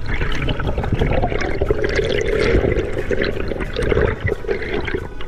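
Water splashing and bubbling close to the microphone, a steady rushing, crackling wash.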